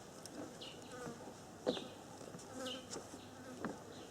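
Faint insect buzzing with short chirps falling in pitch, roughly one a second, over a low hiss.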